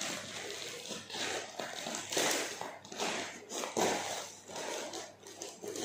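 Scissors cutting open a plastic mailer bag, the plastic crinkling and rustling in irregular bursts.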